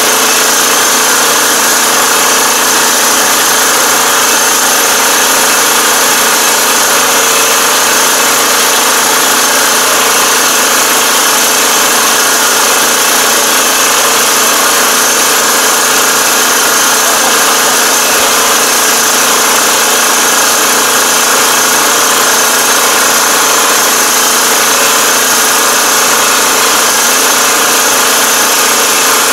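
Engine of a 2021 Iseki five-row rice transplanter running steadily, heard close up together with the machine's mechanical noise, loud and unchanging throughout.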